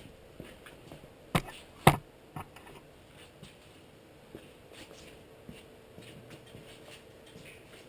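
Two sharp knocks about half a second apart, then a fainter third, over a quiet room with scattered light clicks.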